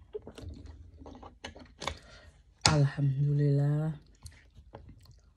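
Small clicks and crackles of a plastic water bottle being handled and its cap twisted, then a woman's voice sounding one long, even-pitched note about halfway through, the loudest sound here.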